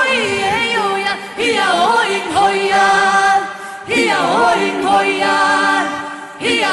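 Background music: voices singing a song in held, gliding notes, with no words made out.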